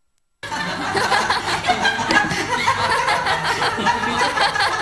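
A group of people laughing and chattering together, cutting in abruptly after about half a second of silence.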